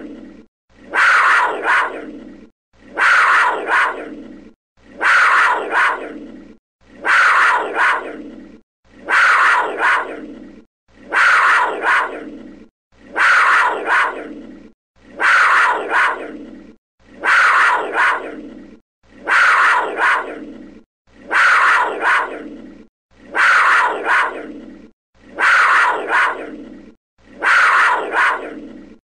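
A big cat's snarling growl, given as a panther. One short call, starting sharply and fading, repeats identically about every two seconds as a looped recording.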